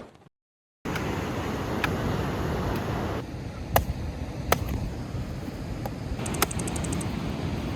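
Steady outdoor background noise, like a street with traffic, starting about a second in, with a few single sharp knocks scattered through it.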